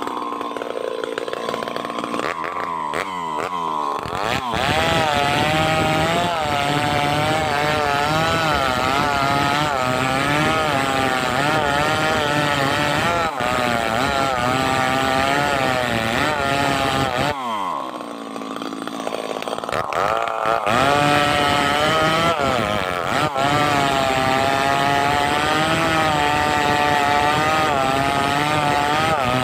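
Two-stroke chainsaw cutting hardwood under load, its engine pitch wavering steadily through the cut. About two thirds of the way in, the revs drop briefly and then climb back up as cutting resumes.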